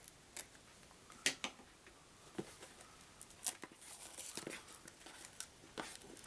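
A small cardboard card-game box being handled: a few scattered light taps and clicks, then soft rustling.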